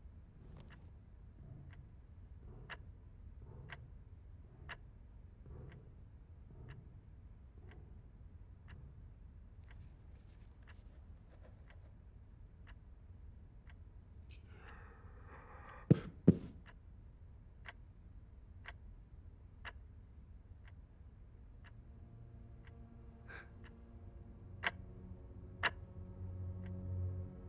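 A clock ticking steadily about once a second. About sixteen seconds in, after a brief rustle, come two sharp, loud clicks in quick succession. From about 22 seconds a low droning hum with several steady tones builds beneath the ticking.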